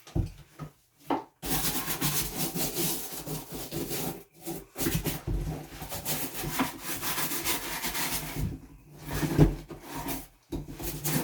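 Scrubbing of a leather-and-rubber L.L.Bean boot with cleaner: a steady, rapid rubbing that goes on in long stretches, broken by a few brief pauses.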